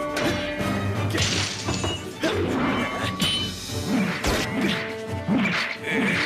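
Sword-fight sound effects: a run of sword clashes and hits, about one a second, over dramatic background music.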